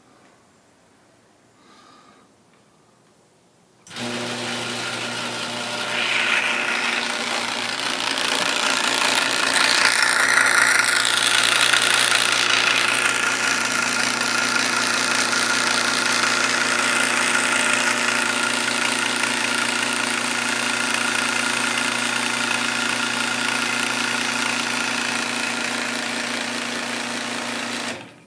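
Garage door opener motor running with a steady hum. It starts suddenly about four seconds in and stops just before the end, running without moving the door: nothing moves except one part that spins a little.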